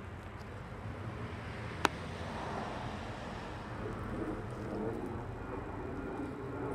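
Outdoor background noise: a steady low rumble with one sharp click about two seconds in.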